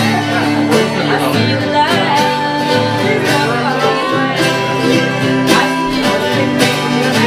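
Twelve-string acoustic guitar strummed with a mandolin playing along, a steady country-bluegrass tune with continuous strumming.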